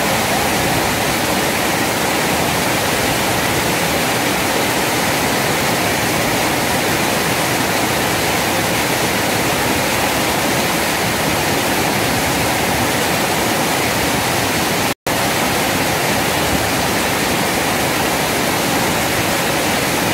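Steady rush of river water pouring over a small weir and churning through the fast current below it. The sound cuts out for a split second about fifteen seconds in.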